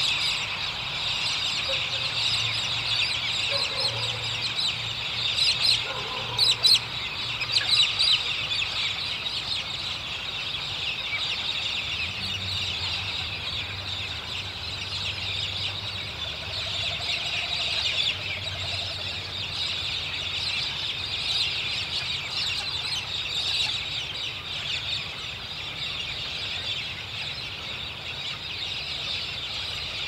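A large flock of birds roosting in treetops, calling all at once in a dense, continuous raucous chorus, with a few louder squawks about six to eight seconds in.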